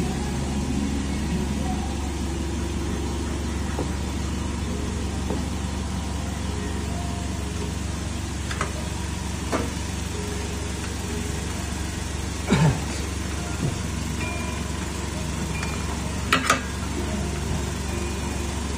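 A steady low hum, with a handful of sharp clicks and knocks from cables and connectors being handled against a sheet-metal cabinet. The loudest knocks come in close pairs, one about two thirds of the way through and another a few seconds later.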